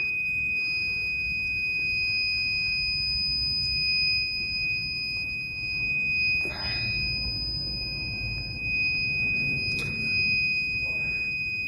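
Electronic alarm buzzer sounding one steady, unbroken high-pitched tone over a low, even rumble of machinery, with a couple of faint knocks partway through.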